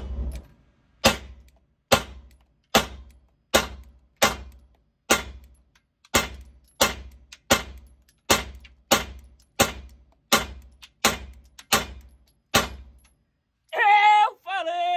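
Seventeen pistol shots from a SIG Sauer P320 X-Carry fired at a steady pace, about one every three-quarters of a second, each with a short echo in an indoor shooting range. The firing stops about 13 seconds in, and a man laughs loudly near the end.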